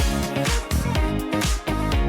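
Upbeat disco-funk background music with a steady dance beat.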